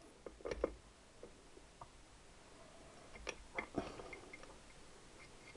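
Faint, scattered clicks and light metal knocks of Triumph 4-speed gearbox gears being wiggled by hand to mesh their teeth as they are seated in the gearbox shell, a couple about half a second in and a few more around three to four seconds in.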